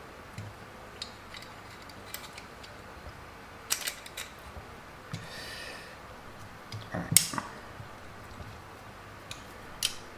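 Hand tools and small hard parts being handled, giving scattered clicks and knocks. A short scraping rustle comes about five seconds in, and the loudest knock about seven seconds in.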